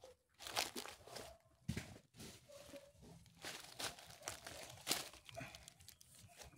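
Dry coconut palm fronds and leaves crackling and rustling in irregular bursts as opened young coconuts are picked up and moved on them.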